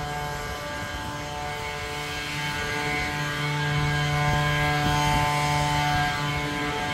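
A steady engine drone with a hum of several even tones, growing louder through the middle and easing off near the end.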